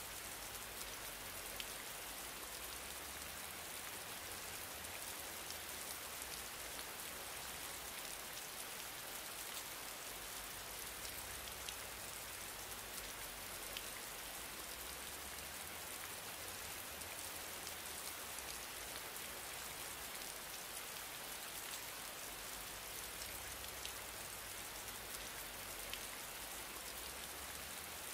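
A steady rain-like hiss with faint scattered ticks and a low hum underneath.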